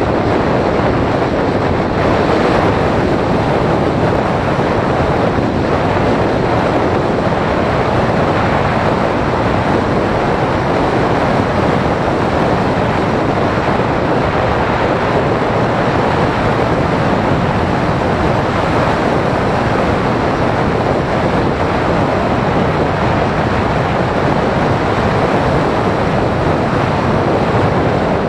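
Steady loud rush of airflow over the on-board camera's microphone as a Phoenix 1600 radio-controlled glider flies.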